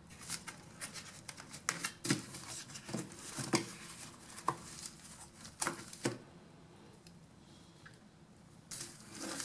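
Irregular clicks, taps and rustles of an airbrush being handled and turned over by hand: a run of sharp clicks over the first six seconds, a quieter stretch, then a few more near the end.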